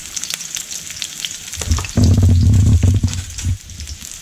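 Garlic, ginger and red onions sizzling in hot oil in a wok, with a steady fine crackle. About two seconds in, a loud low rumble lasts for well over a second.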